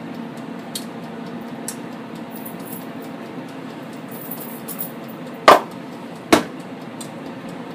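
Della air fryer's fan running with a steady hum while it cooks. Near the end, two sharp knocks about a second apart come from the open kitchen drawer.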